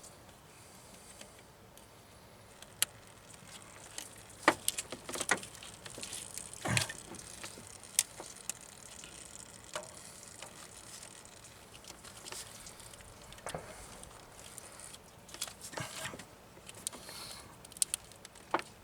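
Scattered metallic clicks, clinks and knocks of hand tools working a spring hose clip off a fuel hose, with quiet stretches between them.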